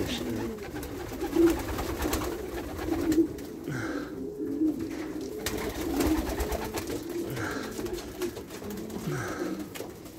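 A flock of racing pigeons cooing in an enclosed loft, many birds overlapping in a continuous low, rolling chorus.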